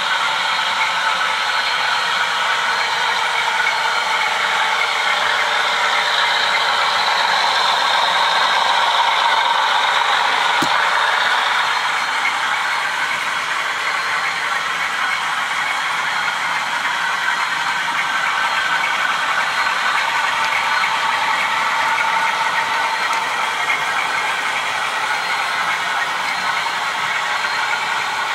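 Model trains running on a layout: a steady whir and rattle of small electric motors and wheels on track, swelling a little partway through, with one sharp click about ten and a half seconds in.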